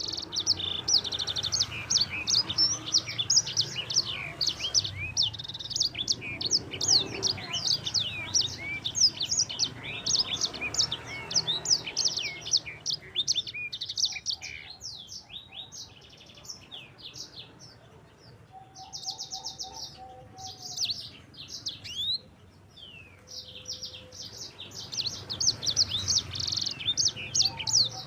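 A sanger, the yellow-fronted canary, singing a fast, continuous song of chirps, sweeping notes and rapid rolling trills, thinning out for a few seconds past the middle before picking up again.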